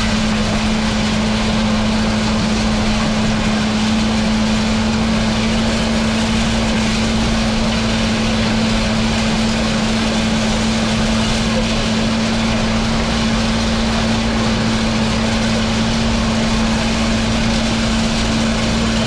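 Tractor engine running at a steady speed, with a constant low hum and no change in pitch or load.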